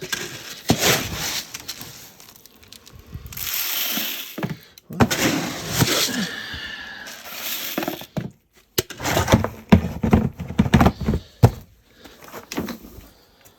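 Thuds, knocks and clatter of a covered duck-feed bin and its lid being handled, with a longer rushing hiss of dry feed about three seconds in.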